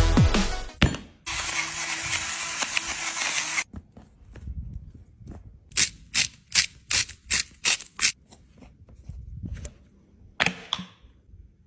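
Seasoning shaken from a spice container over a raw filet mignon on a plastic cutting board: a run of about eight sharp, evenly spaced rattling taps, about three a second. Before it comes a steady hiss of a couple of seconds, and near the end a single click.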